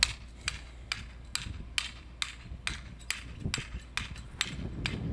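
Hammer driving a marker stake into the ground: about a dozen sharp, even strikes, a little over two a second.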